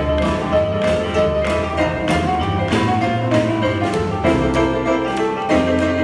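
Live boogie-woogie band playing an up-tempo swing number, with piano and drums keeping a steady driving beat.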